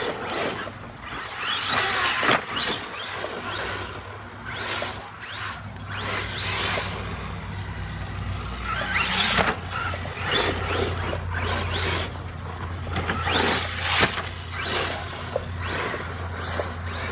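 Brushless electric motor of an Arma Mojave EXB RC truck revving in repeated full-throttle bursts, a high whine rising and falling in pitch several times, with tyres scrabbling over the ground.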